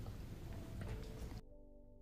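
Faint room noise, then an abrupt cut about one and a half seconds in to very quiet background music with several held notes.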